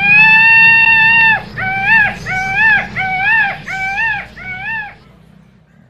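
Male Indian peafowl (peacock) calling. It gives one long, loud call of about a second and a half, then five shorter calls in quick succession, each rising and then falling in pitch.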